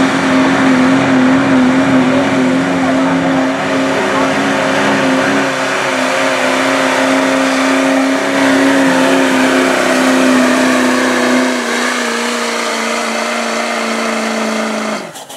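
Duramax diesel engine of a Chevrolet pickup running flat out under heavy load while pulling a truck-pull sled: a loud, steady drone whose pitch sags slightly over the last few seconds as the load builds. It cuts off abruptly near the end.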